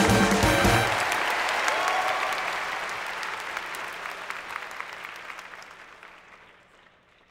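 Jazz band music ends about a second in, leaving audience applause that fades away steadily over the next several seconds.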